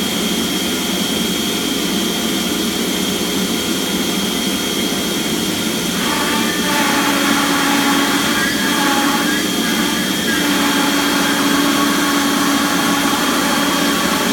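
CNC router running, its spindle giving a steady high whine over loud machine noise as it cuts cabinet parts from plywood. From about six seconds in, a lower hum comes and goes several times.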